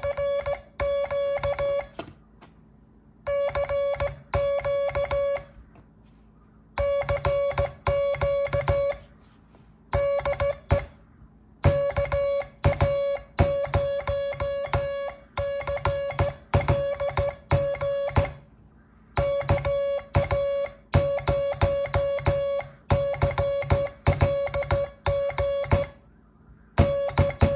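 Morse code keyed on an MFJ code practice oscillator: a steady, mid-pitched beep switched on and off in short and long tones (dits and dahs), sent in groups with short pauses between characters.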